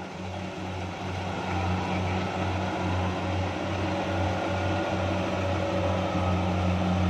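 Kubota DC-70 combine harvester's diesel engine running steadily under load as it cuts and threshes rice, a low pulsing hum that grows louder over the first couple of seconds and then holds.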